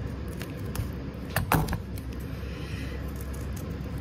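Scissors snipping through adhesive-backed felt strip: a few short, sharp clicks, the loudest about a second and a half in, over a steady low background hum.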